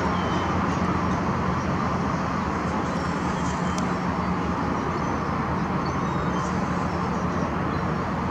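Steady low engine-like hum with a constant hiss, unchanging throughout, and a few faint short high chirps now and then.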